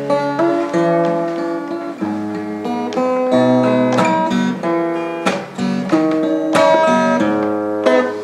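Acoustic guitar playing a song's introduction: picked chords that change every second or so, with sharp strummed attacks.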